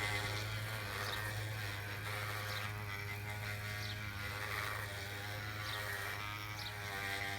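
Electric motors and gearboxes of radio-controlled construction models whirring over a steady low hum, their pitch rising and falling as the machines work.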